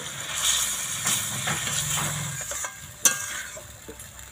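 Chicken curry sizzling in a pan as a metal spatula stirs it. There is one sharp clink of the spatula against the pan about three seconds in, and the sizzle grows quieter towards the end.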